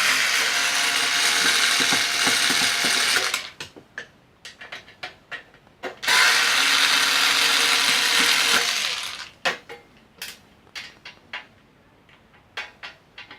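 Cordless drill-driver run twice, about three seconds each, driving out screws, with small clicks of handling between the runs.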